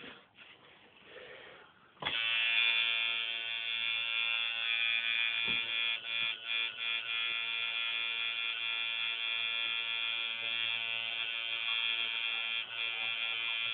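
Tattoo machine buzzing steadily as the needle works ink into the skin of a leg, starting about two seconds in, with a few brief dips near the middle.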